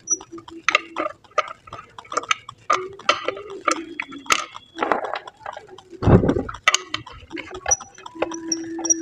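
A run of quick clicks and taps, like small parts and tools being handled, with a heavy low thump about six seconds in and a brief steady low tone near the end.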